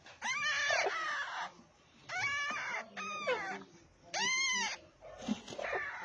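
Alexandrine parakeets calling while the chicks are fed in the nest: four short squawks, each rising then falling in pitch, with raspy noise between them.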